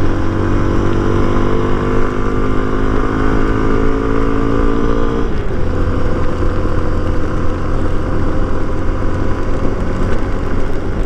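Hero Xpulse 200 motorcycle's single-cylinder engine running steadily as the bike is ridden, its tone changing about five seconds in.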